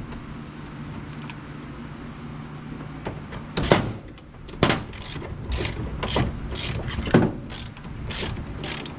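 Hand ratchet wrench working a door-hinge bolt: after a few seconds of only a steady low hum, the ratchet's pawl clicks in regular back-strokes about twice a second.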